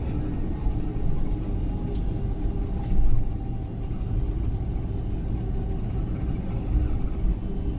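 Steady low cabin rumble of an Airbus A330 taxiing, heard from inside the passenger cabin, with a brief louder bump about three seconds in.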